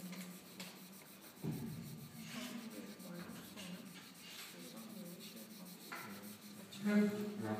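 Fingers rubbing powdered pastel into drawing paper, a soft papery scuffing as the colour is blended into a gradient, over a steady low room hum. There is a soft bump about one and a half seconds in, and a brief voice near the end.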